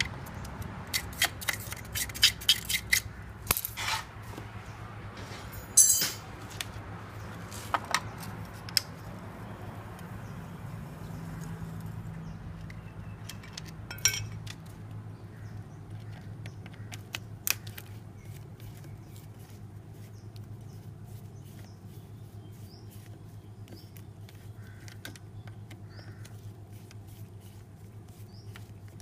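Hand-tool clicks and metal clinks as the bolts of a Yamaha Mio scooter's final-drive gear case cover are worked loose with a ratcheting screwdriver: quick runs of ticks and sharp metallic knocks over the first 18 seconds or so, then quieter, with a faint steady hum underneath.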